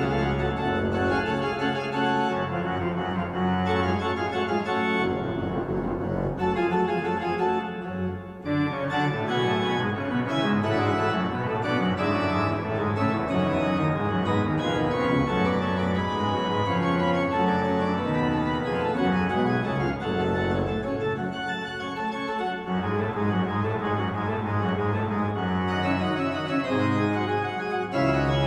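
Pipe organ playing dense chords over a strong pedal bass, with a short break about eight seconds in.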